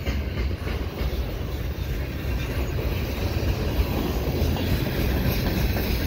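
Freight cars of a slow-moving mixed freight train rolling past, a steady rumble of steel wheels on the rails.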